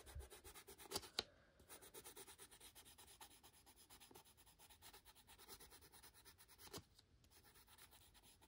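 Faint scratching of a coloured pencil shading on coloring-book paper, a quick steady run of short back-and-forth strokes with a few slightly sharper ticks.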